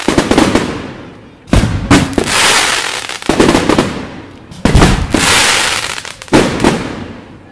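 Aerial firework shells bursting in quick succession, about eight sharp bangs at roughly one a second, some in close pairs. Each bang is followed by a long hiss that fades away.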